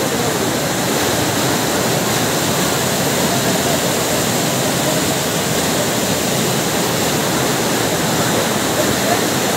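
Floodwater cascading down a stone stairway walkway like a waterfall, a loud, steady rush of water.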